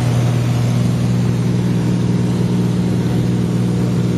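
Light aircraft's engine and propeller droning steadily in cruise, heard inside the cabin.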